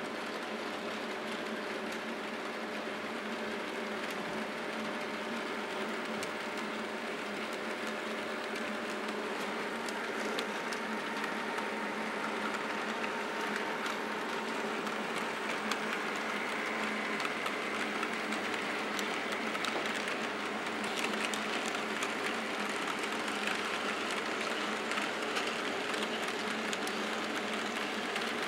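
HO-scale model trains running on the layout's track: the small electric motors whir steadily and the wheels click over the rails. The sound grows a little louder in the second half.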